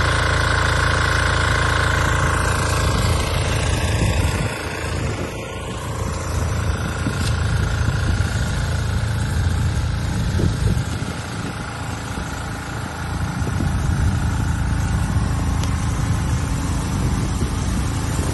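A vehicle engine running with a steady low rumble, with a few faint steady tones over it in the first few seconds.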